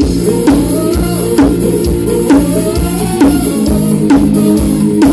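Music with drums, guitar and heavy bass played loud through a car sound system, with a strong drum hit about once a second.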